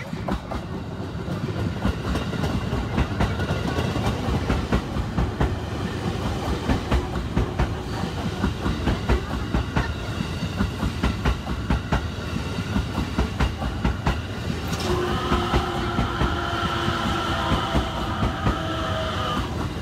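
JR East 255 series electric express train passing close by, its wheels clacking rapidly over the rail joints. A steady ringing whine joins in for the last few seconds.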